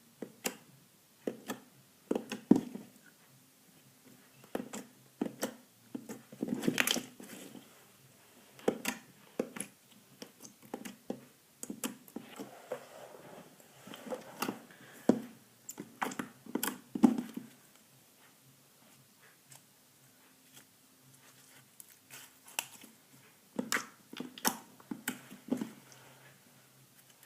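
Galaxy slime being squeezed and stretched by hand, making irregular bursts of sticky pops, clicks and squelches, with a quieter stretch about two-thirds of the way through.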